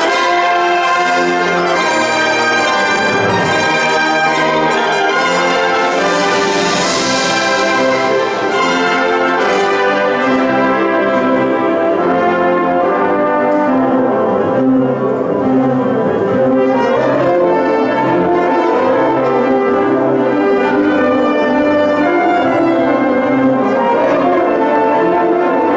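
Wind band playing a loud full-ensemble passage, with the brass prominent over the woodwinds.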